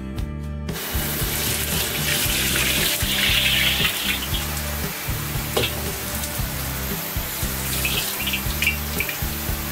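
Running tap water and a lit gas wok burner at a restaurant wok station, starting under a second in, with a sharp metal knock about halfway through and a few short clinks near the end.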